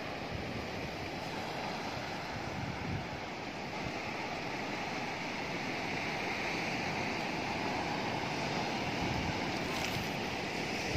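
Ocean surf breaking and washing up a pebble beach, a steady rushing, with some wind on the microphone.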